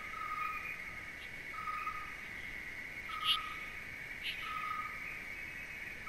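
Outdoor animal calls: a steady high trill under a short, level note that repeats about every one and a half seconds, with a few brief higher chirps.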